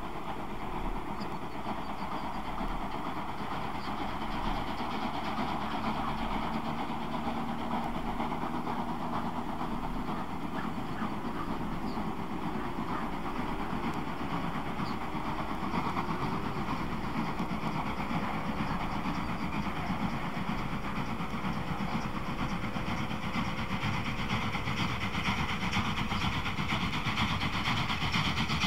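DB class 01 Pacific steam locomotive No. 001-181 working a train uphill without a banker, its exhaust slowly growing louder as it approaches. A diesel train's engine drones in the background, its pitch slowly rising in the second half.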